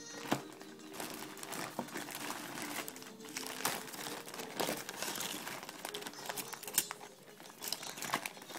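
Crinkling and irregular sharp clicks of small plastic parts being handled, typical of hands working on a phone's plastic housing during reassembly.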